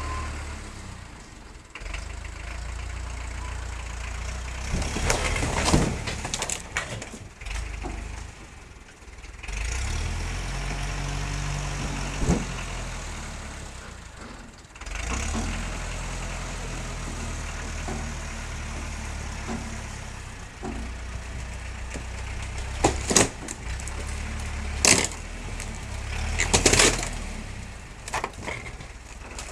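Tractor engine running under load as its loader pushes into a wooden shed, its pitch rising and falling. Wood cracks and debris crashes down in a cluster of loud snaps about five to seven seconds in, and again in three sharp cracks near the end.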